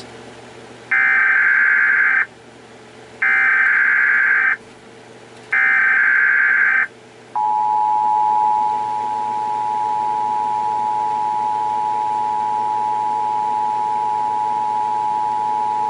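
Emergency Alert System (EAS) broadcast tones. First come three short, harsh digital data bursts of the SAME header, each about a second and a half long and a second apart. Then, about seven seconds in, the steady two-tone EAS attention signal starts and holds on, announcing that a voice alert message follows.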